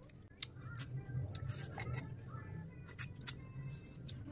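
Close-up eating sounds: scattered small wet clicks and smacks of someone chewing and sucking on pieces of curried chicken eaten by hand, over a low steady hum that comes in about half a second in.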